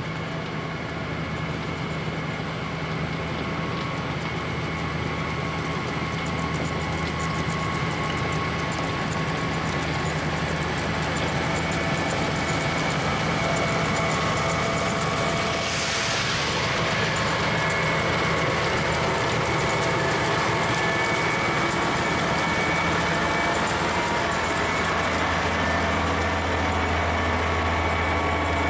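Rotary snowplow's diesel engine running steadily as its blower throws snow, slowly growing louder. A brief rushing hiss comes about halfway through.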